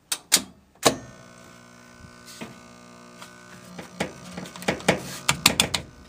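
A few sharp clicks, then from about a second in the drain pump of a Kenmore (Frigidaire-built) front-load washer hums steadily, powered but not pumping. This is a stalled pump with a jammed impeller, more than likely from something stuck in the pump. Quick clicks and taps come over the hum near the end.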